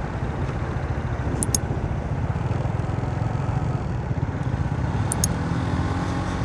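Wind buffeting a phone's microphone on a moving motorcycle: a steady low rumble with road and vehicle noise under it.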